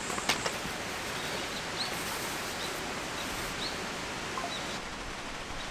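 A few short, high bird chirps over a steady rushing outdoor background noise.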